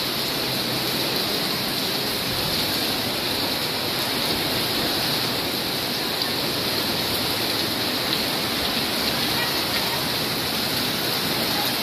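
Heavy rain falling steadily, an even, unbroken wash of downpour noise.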